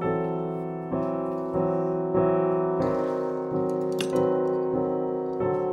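Background piano music: slow notes and chords struck every half second to a second, each fading before the next.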